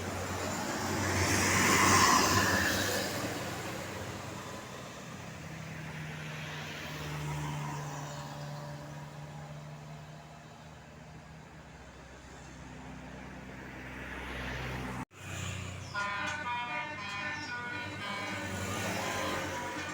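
A large vehicle, most likely a bus, passes on the hill road, loudest about two seconds in, followed by a steady engine note. Near the end, after a brief cut, a multi-tone telolet bus horn plays a stepping tune.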